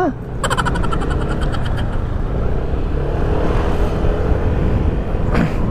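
Yamaha NMAX 155 scooter riding along, its engine running under steady wind and road noise on a helmet-mounted action camera. A brief rapid rattling clatter comes about half a second in.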